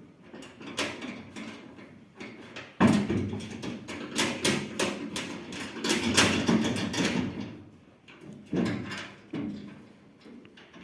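Irregular metal clanks, knocks and scraping from hand work on combine harvester parts. They come thickest in the middle, then turn to a few separate knocks near the end.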